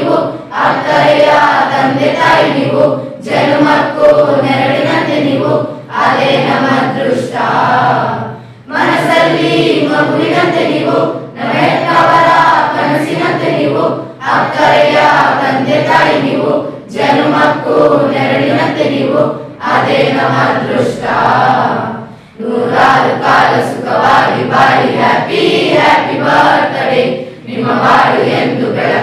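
A class of schoolchildren singing together as a group, in phrases of a few seconds with short breaks between them.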